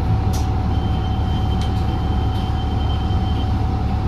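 Cabin sound of a New Flyer XDE40 diesel-electric hybrid bus under way: a steady low rumble with a constant whine over it. A thin high-pitched tone sounds through the middle of the stretch, along with a few light clicks.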